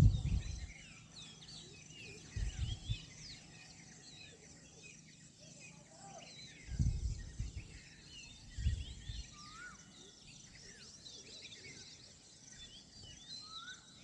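Several birds chirping and calling in quick short notes over a steady background hiss, with a few brief low rumbles a couple of seconds in and again around the middle.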